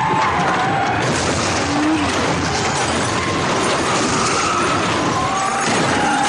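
Action-movie car-chase sound effects: car engines revving and tyres squealing as a car drifts, over a constant heavy rumble of crash noise.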